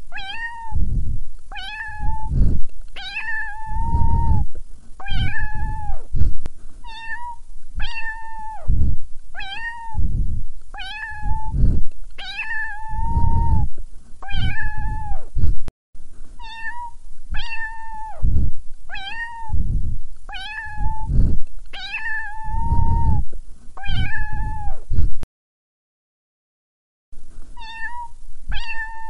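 A looped cat-meow sound, the same high, level meow repeated about once a second over a low thumping beat, some meows held longer than others. It cuts out for about two seconds near the end, then resumes.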